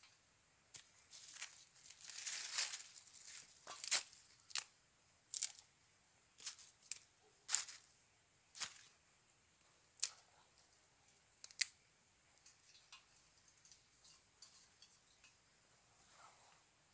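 Dry twigs and kindling being snapped and handled by hand: a string of sharp, irregular snaps and cracks, with a longer scratchy rustle a couple of seconds in and softer small crackles near the end.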